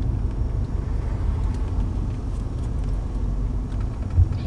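Steady low rumble of a Nissan SUV, engine and road noise heard from inside the cabin, with a single low thump about four seconds in.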